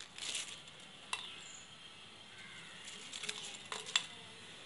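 Crisp, puffed pappadam crumbling in the hand and broken pieces dropping onto a non-stick pan: faint scattered crackles and light clicks, the sharpest a little before the end.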